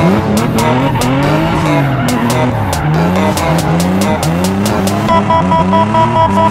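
Drift car engine revving up and down in quick repeated sweeps as the car slides sideways, with tyres squealing; the squeal settles into a steady high tone about five seconds in.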